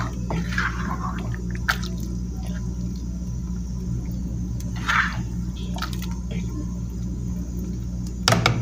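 A plastic ladle stirring a pot of cooked beans, the thick liquid sloshing and squishing, with a few light clicks of the ladle against the pot. A steady low hum runs underneath.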